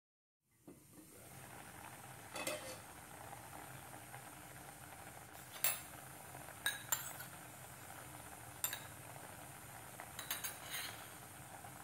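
Fish curry simmering in a wok on a gas stove, a steady low bubbling hiss, with several sharp clinks and clicks scattered through it.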